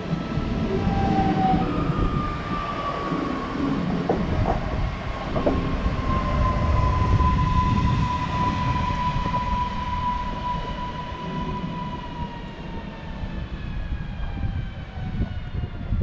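Newag Impuls 36WEa electric multiple unit pulling into a station. Its traction motors give a whine that falls slowly in pitch as the train slows, over a steady rumble of wheels on rail, with a few knocks about four to five seconds in.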